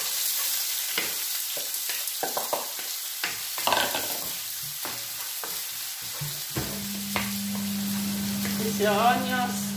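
Chopped onions sizzling as they fry in hot oil in a frying pan, with short knocks and scrapes of a spoon stirring them. A steady low hum comes in about two-thirds of the way through.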